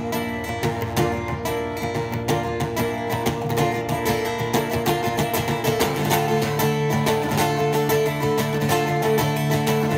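Acoustic guitar strummed in a steady rhythm, with no singing; the chord changes about six seconds in.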